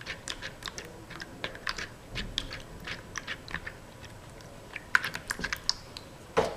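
Clear-glue slime being stirred in a bowl as it thickens: irregular sticky clicks and small squelches, with a pause of about a second past the middle.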